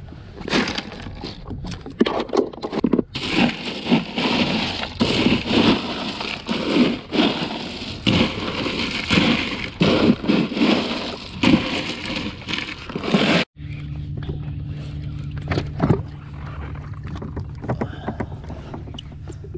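Irregular knocks and splashy, hissing noise on a personal watercraft. After an abrupt cut about two-thirds of the way in, a steady engine hum with a constant low tone.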